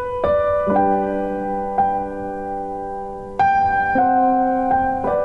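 Background piano music: slow single notes and chords, each struck note ringing on until the next.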